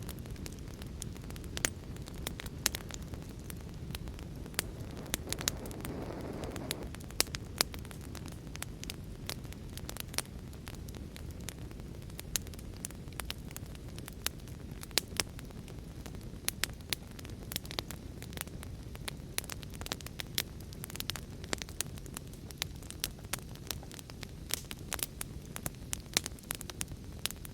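Wood fire in a fireplace crackling, with frequent sharp pops, over a steady low rush of heavy rain. A brief swell of softer rushing noise comes about six seconds in.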